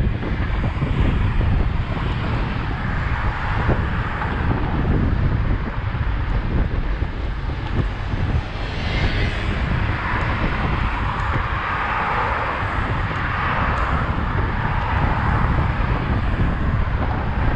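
Wind rumbling on the microphone of a bike-mounted action camera, with road traffic passing close alongside. The traffic swells from about halfway through as vehicles go by.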